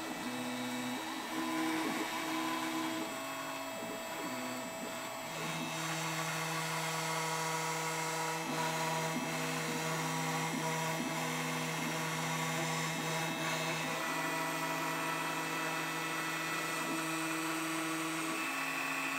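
X-Carve CNC router with a Makita router spindle running while its end mill carves ice. The stepper motors whine in steady tones that change pitch every few seconds as the carriage changes speed and direction.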